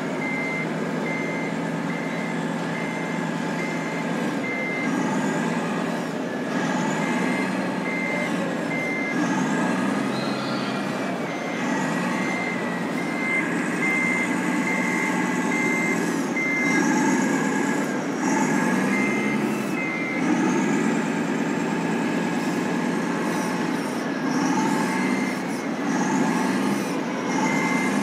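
Reversing beeper from the sound unit of a radio-controlled Tamiya truck, beeping about twice a second while the rig backs up. The beeping comes in spells that stop and restart several times. A steady background din runs underneath.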